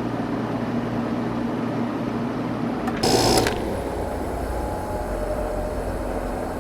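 Sears Kenmore 6000 BTU window air conditioner from 1988 running steadily with a low hum. About three seconds in there is a short sharp click-like burst as it is switched off. The hum then fades and the running noise begins to ease off as the unit winds down.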